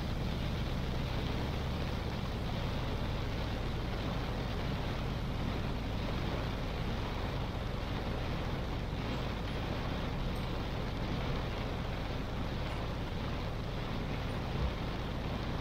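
Car driving in heavy rain: a steady hiss of rain and tyre spray over low engine and road rumble, with one brief low thump near the end.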